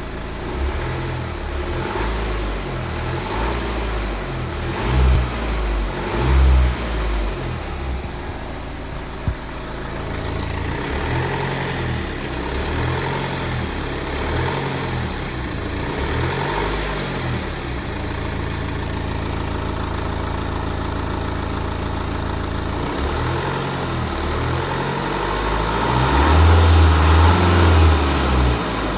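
BMW 118d's N47T four-cylinder diesel engine running and revved a few times, with a longer, louder rev near the end. It has a clacking noise that comes in only from about 1500 rpm. The owner cannot tell whether it comes from the timing chain or from a slapping crankshaft pulley damper.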